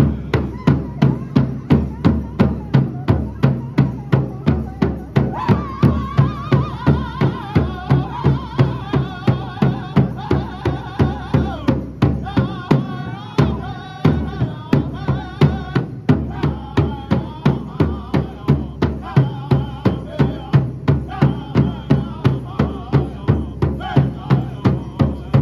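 A powwow drum group strikes a large shared bass drum in a steady unison beat of a little over two strokes a second, playing an intertribal song. From about five seconds in, high-pitched singing in the Northern style rides over the beat.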